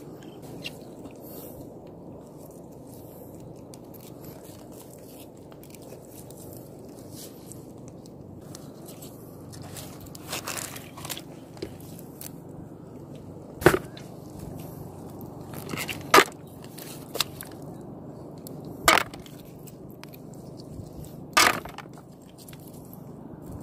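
A hand rummaging and picking through wet mud and seagrass while gathering shells at low tide. There are a few sharp crackling snaps and scrapes every couple of seconds over a steady low rush.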